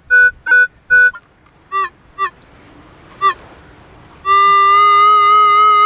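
Minelab CTX 3030 metal detector sounding off over a strong target: short repeated beeps, about three a second, in the first second, then a few chirping tones of shifting pitch, then a steady held tone from about four seconds in.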